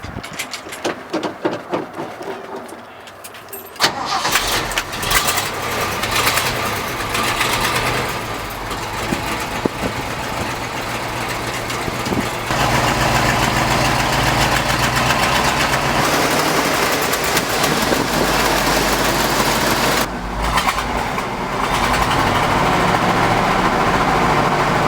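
Ford 370 V8 in a dump truck starting about four seconds in, then running and revving, louder from about halfway through, with a brief drop near the end. It is exhausting through a rusted original muffler that leaks.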